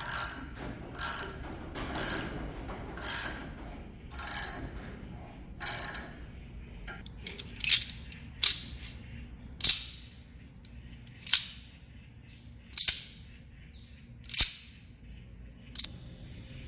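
A workshop tool making a series of short, sharp mechanical strokes, about one every second or so. The first few are fuller, and the later ones crisper and brighter.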